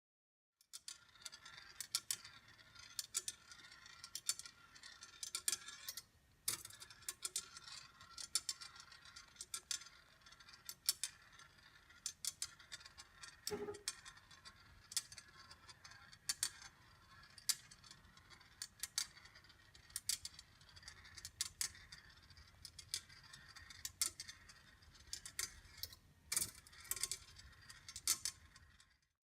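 Congreve rolling-ball clock running: faint, irregular light metallic clicks from the mechanism, with one ringing knock about halfway through.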